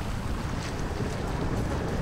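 Wind buffeting the microphone aboard a small wooden boat under way at sea, over a steady rush of water along the hull.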